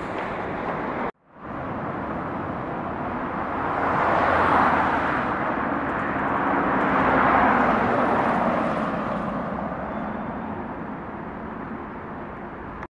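City road traffic: cars passing on a multi-lane road with a steady tyre hiss, swelling twice as vehicles go by, after a brief cut to silence about a second in.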